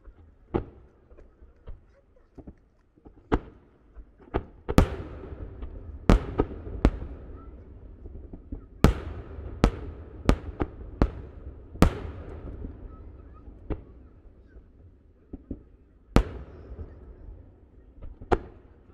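Shakudama (10-inch) aerial firework shells bursting in a rapid barrage: a string of sharp booms at uneven spacing, close together in the middle, with a low rumbling echo between them.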